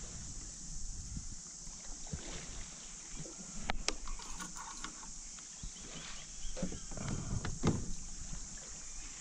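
Knocks and handling bumps against a fibreglass canoe's hull, a few sharp ones with the loudest a little under four seconds in, over a steady high hiss.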